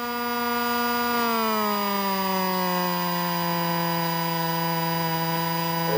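A steady whine with many overtones in the Cessna 150's cockpit audio. Its pitch sinks over a second or two and then holds level, following the slowing of the engine and propeller as the plane turns.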